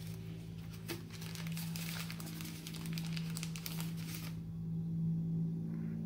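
Thin frosted plastic bag crinkling as it is handled and opened. The crinkling stops after about four seconds. A steady low hum runs underneath throughout.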